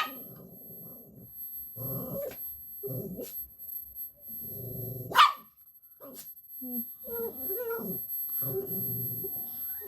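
Angry dog growling and grumbling in repeated drawn-out bouts, with two sharp barks, one at the start and a louder one about five seconds in.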